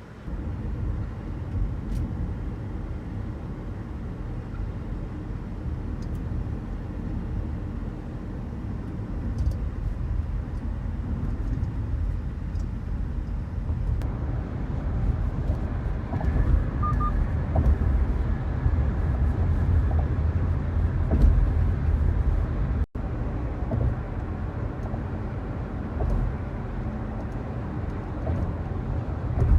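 Road and engine noise inside a moving car's cabin: a steady low rumble that grows somewhat louder about halfway through, with a brief dropout near the end.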